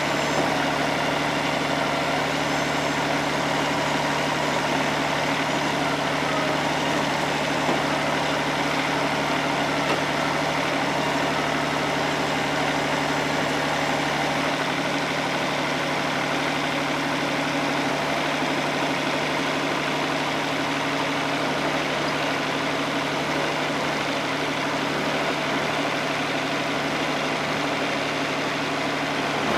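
Wood-Mizer LT50 Wide portable sawmill's engine running steadily at idle.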